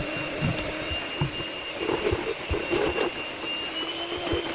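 Small electric kitchen appliance motor running steadily with a high whine, processing thick bean batter for akara, with irregular low knocks.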